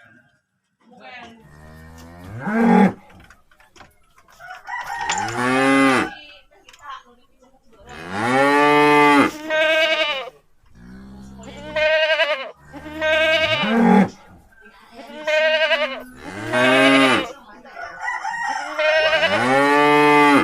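A calf giving long, drawn-out moaning moos, about nine of them, one every second or two and often in close pairs, each rising and then falling in pitch.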